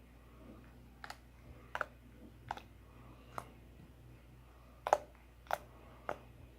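Slime being worked by hand, giving about seven short, sharp clicks and pops at uneven intervals, the loudest about five seconds in.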